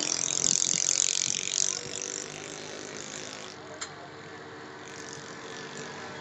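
Railway crane lifting a suspended goods wagon body: a loud mechanical rattling for the first couple of seconds, then the crane running steadily, with one sharp click about four seconds in.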